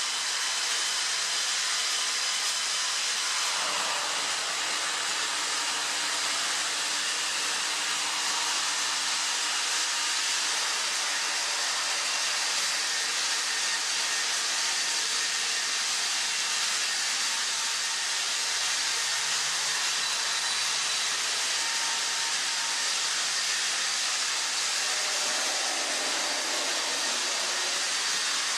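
Battery-powered Plarail toy trains running on plastic track: a steady whirring hiss of small electric motors and wheels, unchanging throughout.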